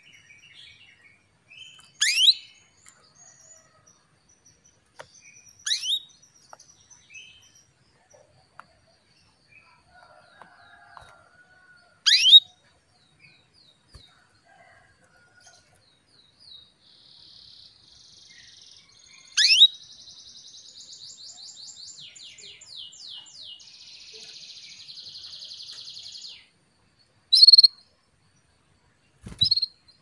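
Female domestic canary calling: loud single notes, each sweeping sharply down in pitch, spaced several seconds apart. A softer run of fast repeated trill notes comes in the middle stretch, and two shorter calls near the end.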